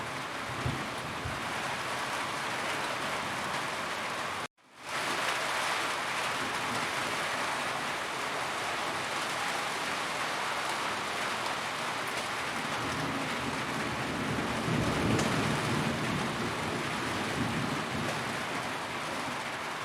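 Steady rain on a roof, an even hiss, with a low rumble of thunder swelling about two-thirds of the way through. The sound cuts out briefly at about four and a half seconds, then fades back in.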